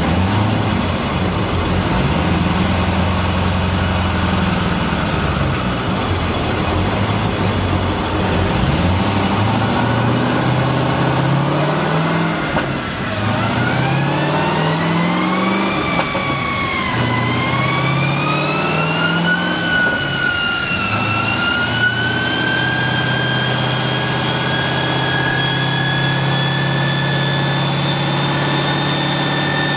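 Twin-turbocharged 6.4-litre HEMI V8 of a 2013 Dodge Challenger SRT8 running on a chassis dyno: the revs climb and drop several times, then a high whine rises through the second half, dipping briefly twice, while the engine holds a steadier note near the end.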